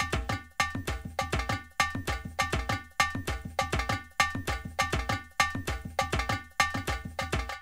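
Outro music: a quick, steady rhythm of short struck percussion notes that ring briefly, several a second.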